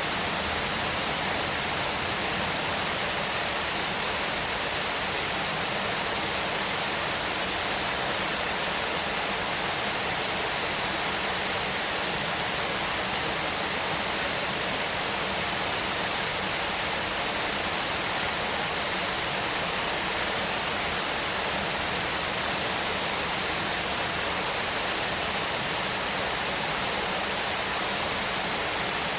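Waterfall, water pouring and splashing in a steady, unbroken rush.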